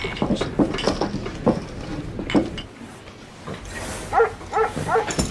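Clinks and knocks of glasses and chips over a busy room's murmur. Near the end a dog barks in short, sharp yaps, about four in a second.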